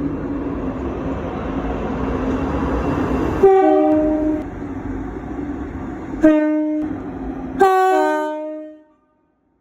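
ScotRail Class 334 electric multiple unit sounding its two-tone horn three times over the steady noise of the running train: a high-low blast, a short blast, then a longer high-low blast. The sound cuts off suddenly near the end.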